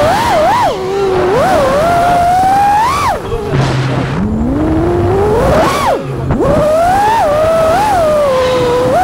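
FPV quadcopter's brushless motors whining, the pitch rising and falling with the throttle; it drops sharply twice, about three and six seconds in, then climbs again.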